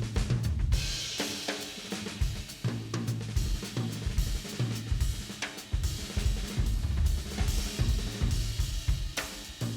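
Background music driven by a drum kit: bass drum, snare and cymbals over a repeating bass line.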